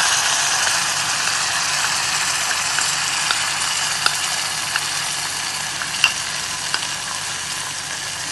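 Hot tempering oil with golden-fried onions sizzling loudly in a clay pot as mashed dal goes into it, easing off slightly toward the end. A few light clicks of a spoon and wooden spatula against the pot.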